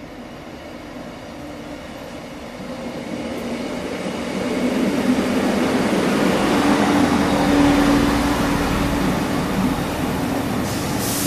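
A diesel multiple unit running in past the platform. Its engine and wheel noise grows louder to a peak over the middle, with a steady low engine hum, and a short hiss comes near the end.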